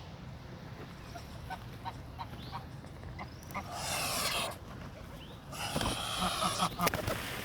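Geese honking: two harsh calls, each about a second long, past the middle, with a few faint ticks before them.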